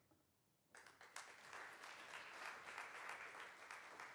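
Audience applauding, fairly faint, after a short silence. The clapping starts suddenly about a second in and carries on steadily as a speaker finishes.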